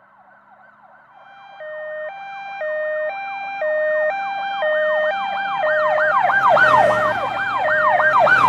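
Emergency vehicle sirens growing louder as they approach: a fast wailing yelp sweeping up and down about three times a second, joined about a second and a half in by a two-tone hi-lo siren stepping between two notes, with traffic rumble underneath.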